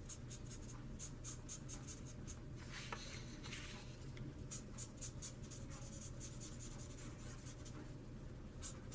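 Felt-tip marker nib scratching over paper in quick, short colouring strokes, soft and many to the second.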